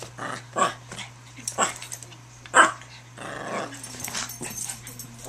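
Small dogs, a Yorkshire terrier among them, play-fighting: a run of short barks about once a second, the loudest one about two and a half seconds in, with growling between them.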